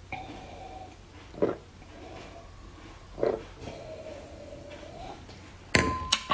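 Loud gulping swallows of orange juice, about two seconds apart, with faint throaty sounds between them. Near the end come two sharp, louder clicks.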